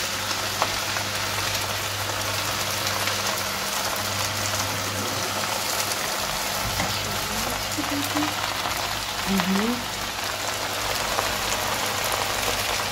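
Fresh spinach sizzling steadily in hot sunflower oil in a frying pan as it wilts.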